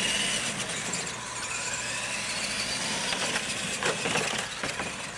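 Radio-controlled monster trucks' motors and gears whining, the pitch rising and falling as they are driven on dirt. A few knocks about four seconds in.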